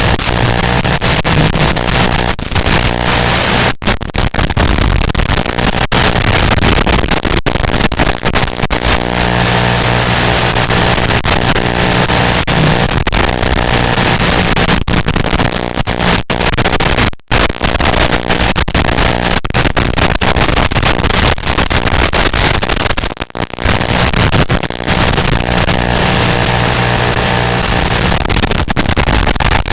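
Loud static hiss with a low buzz underneath, broken by a few brief dropouts. It is the noise on the audio channel of an analog FPV video receiver, recorded by the goggles' DVR.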